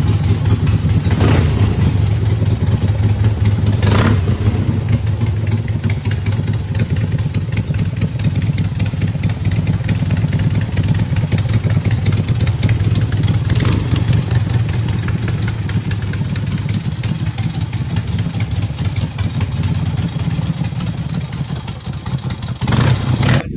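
Custom chopper motorcycle engine running steadily at idle, revved briefly about four times.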